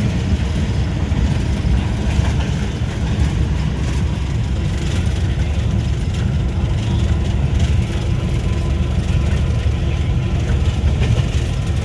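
Cab interior of a GE U18C diesel-electric locomotive: its diesel engine running with a steady low rumble while the locomotive pulls a loaded train.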